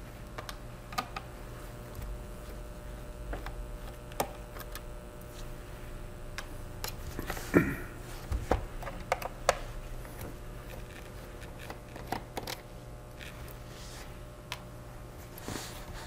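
Scattered small clicks and taps of a Phillips screwdriver backing out the tiny bottom-panel screws of a laptop, the screws being laid down one by one, over a steady low hum.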